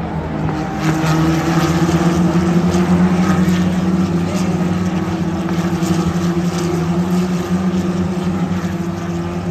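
Single-seater race cars' engines on the circuit, a steady loud drone that holds one pitch.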